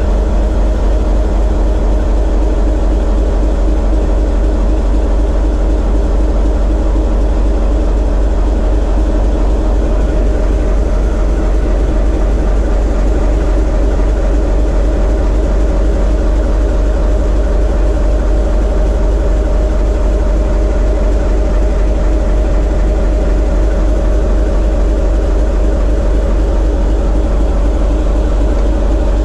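Diesel engine of a TEM2 shunting locomotive running steadily under load, heard from inside the cab: a constant deep rumble with a steady hum above it. The generator is loaded into a water rheostat while the engine is run in after a major overhaul.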